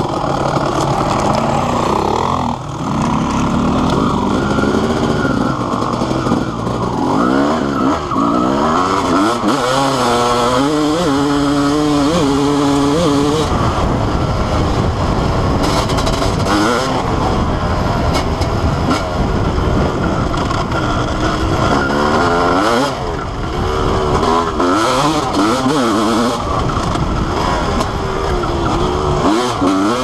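Honda CR250R single-cylinder two-stroke motocross engine under way, heard from on the bike. The revs climb and drop again and again as the rider accelerates and shifts, holding steady for a few seconds near the middle.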